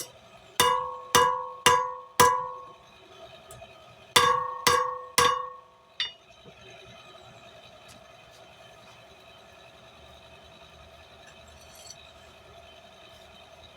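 Blacksmith's hammer striking steel stock on an anvil while forging: four ringing blows about half a second apart, then after a short pause three more, and a light tap about six seconds in, with the anvil ringing after each blow. A faint steady hum runs underneath.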